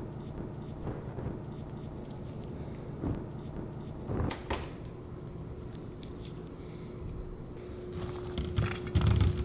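Small soft clicks and taps of syrup-glazed pecans being pressed into a pie filling over a steady background hum, with a few louder knocks near the end as a hand works in a stainless steel bowl of pecans.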